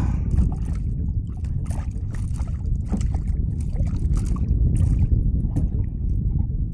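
Small hooked fish splashing at the surface beside a kayak while held by the line, a run of irregular water splashes over a steady low rumble.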